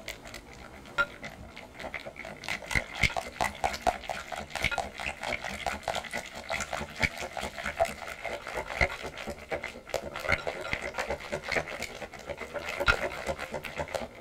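Wire balloon whisk beating cream by hand in a glass bowl: a quick, steady run of clicks and taps as the wires strike the glass, with a wet slapping of the thickening cream.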